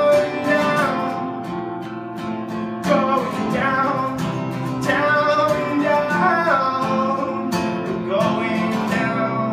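Strummed acoustic guitar with a man singing long, sliding notes over it. No clear words come through.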